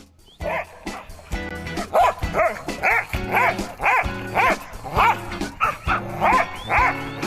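A dog barking repeatedly, about two barks a second, starting about half a second in, over background music.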